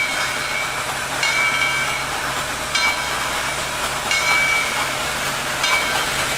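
Railway train running: a steady rushing noise over a low hum, with a short high-pitched squeal that comes and goes every second or so.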